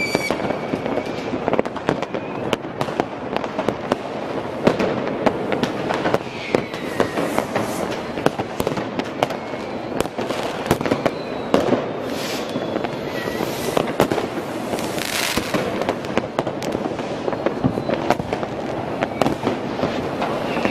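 A dense barrage of New Year's Eve fireworks and firecrackers: constant bangs and crackling, with a few short rocket whistles and a couple of hissing bursts near the middle.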